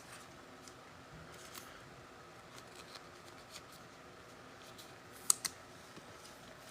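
Faint handling of trading-card packaging: small scattered clicks and scrapes, with two sharp clicks close together a little past five seconds in.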